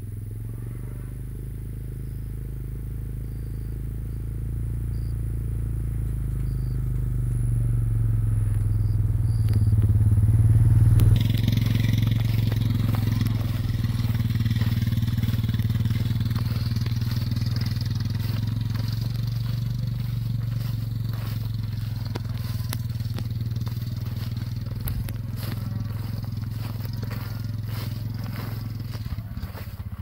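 A small vehicle's engine running steadily, swelling to its loudest about 11 seconds in. From then on a rough rustling and crackling joins it.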